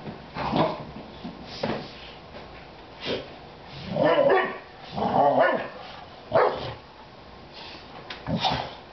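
Boxer dog barking in play: about seven short barks spread out, the longest around four and five seconds in.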